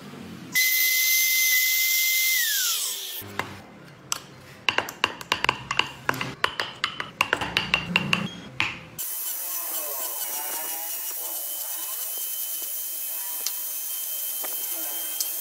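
Small woodworking tools on little wooden toy wheels. First a high steady whine that drops in pitch as it stops, then a run of sharp, irregular clicks and taps of a blade cutting out wooden wheel spokes, then a steady even hiss.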